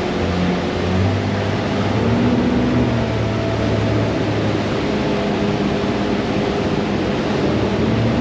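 Fishing boat's engine running at cruising speed, a steady drone under a loud rush of wind and water.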